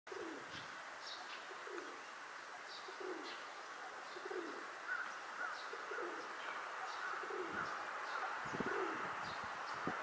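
Feral pigeon (rock dove) cooing over and over, a low coo falling in pitch about once a second. This is the bow-coo of courtship, given while the bird puffs out its throat and turns in circles.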